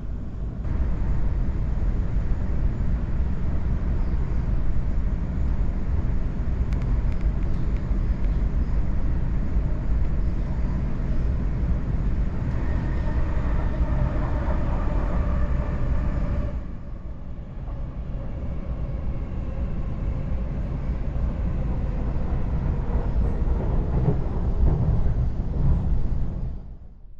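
Sydney Trains suburban electric train running between stations, a steady rumble of wheels on the track. A faint whine rises out of the noise about halfway through. The sound drops suddenly to a lower level a little later.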